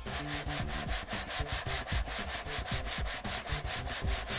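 Sheet of corrugated cardboard shaken rapidly back and forth, scraping on the surface beneath it: an even run of rubbing strokes, several a second.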